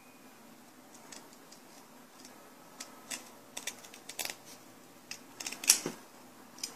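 Scissors snipping the edges off a small optical stamp plate: a series of irregular sharp cutting clicks beginning about a second in, the loudest snip near the end.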